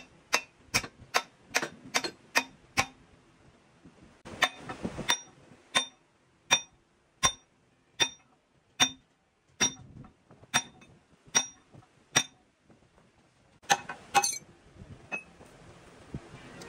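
Repeated hammer blows on metal gearbox parts, each with a short metallic ring. A quick run of about three blows a second is followed by a pause, then slower, steady blows roughly every three-quarters of a second, and a brief cluster of blows near the end.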